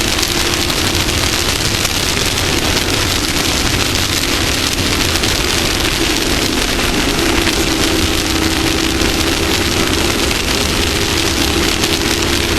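Off-road race vehicle running at steady speed: an engine drone under a loud, even hiss.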